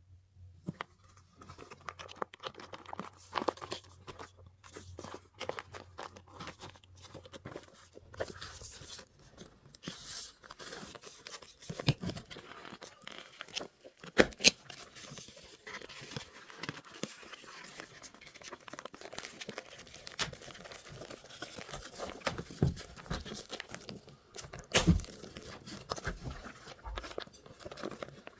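Toy packaging being opened by hand: plastic wrapping crinkling and tearing, with many small sharp clicks and taps, a couple of them louder, around the middle and near the end.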